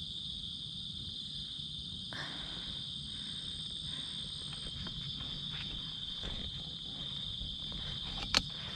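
Steady, high-pitched chorus of crickets and other night insects, with faint scattered crackles and one sharp click near the end.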